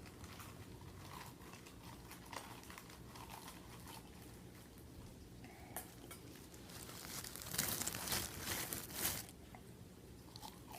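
Popcorn bag being handled and crinkled, with faint small rustles and clicks at first and a louder burst of crinkling about seven seconds in that lasts around two seconds.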